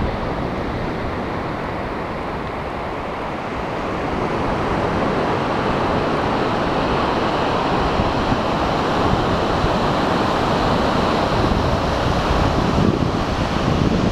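Ocean surf breaking on a sandy beach, a steady rushing noise, mixed with wind buffeting the microphone; it grows a little louder about four seconds in.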